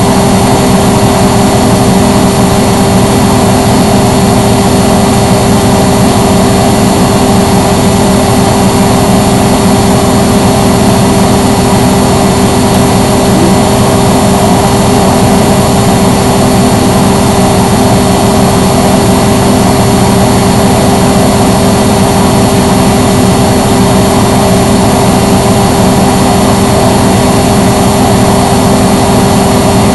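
Front-loading washing machine spinning its drum at a steady speed: a loud, even motor hum with a steady whine, running without pauses or tumbling knocks.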